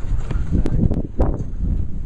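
Wind buffeting the microphone with a heavy low rumble, and a few short knocks in the middle.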